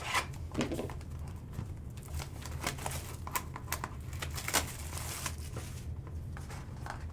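Trading card packaging being handled and opened: plastic wrap and cardboard crinkling and tearing, with scattered light clicks and taps.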